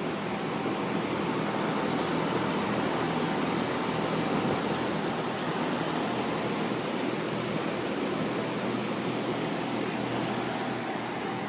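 Two Carrier Infinity 17 central air conditioner outdoor units running together: a steady whoosh of air from their condenser fans with a faint low hum from their two-stage scroll compressors.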